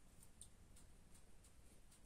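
Near silence: room tone with a few faint, short high ticks.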